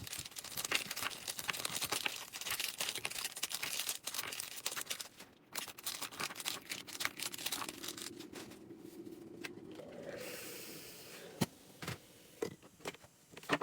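Plastic oyster packaging crinkling and tearing, with rapid clicks and crackles as oysters are opened. The crackling thins out about five seconds in, leaving scattered ticks and a faint steady tone that rises slightly in pitch.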